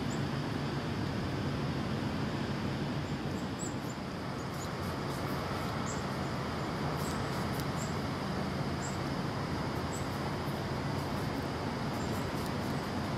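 Steady outdoor background noise with a low hum, and short high chirps scattered through it.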